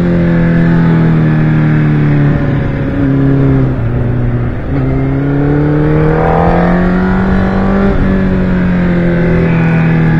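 Onboard engine note of a vehicle lapping a track, heard from the vehicle itself. The pitch drops in steps early on, then climbs gradually as it accelerates through the corners, over a steady rush of wind and road noise.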